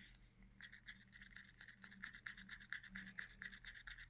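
Wooden stirring stick scraping around the inside of a plastic cup, mixing pigment powder into liquid resin. The scraping comes in faint, quick, regular strokes.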